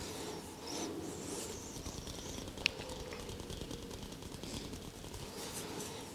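Hands rubbing and working over hair and skin in a head massage, a soft steady rustling, with one sharp click a little under three seconds in.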